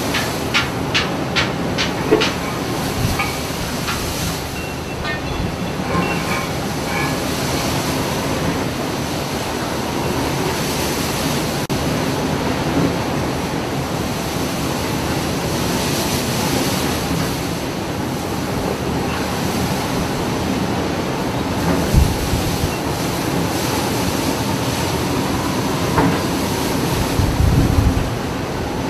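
Heavy diesel engines of loaded dump trucks and the vessel running with a steady rumble, with a quick run of metallic clanks in the first couple of seconds and a few heavy low thumps near the end.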